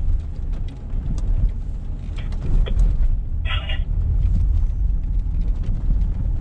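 Car's engine and road noise, a steady low rumble heard inside the cabin while driving, with light clicks and one brief higher sound about three and a half seconds in.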